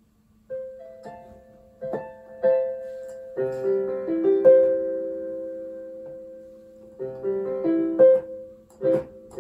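Piano voice of a Casio CT-S300 portable keyboard. Single notes lead into chords that are held and ring on, fading slowly, as the new sustain pedal is tried out.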